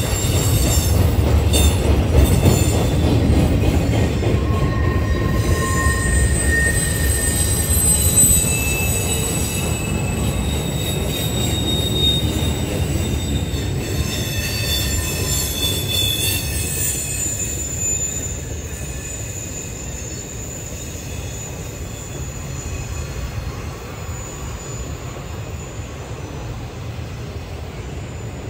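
Intermodal freight train cars rolling past: a steady rumble of wheels on rail with high wheel-squeal tones that come and go. The rumble eases somewhat in the second half.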